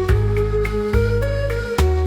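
Background music: sustained melodic notes changing about every half second over a steady bass line.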